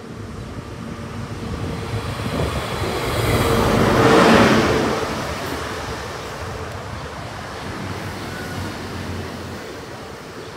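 A High Speed Train with a Class 43 diesel power car leading runs through the station. Engine and wheel noise build to a peak about four seconds in as the power car passes close by, then the coaches rumble past and the sound slowly eases.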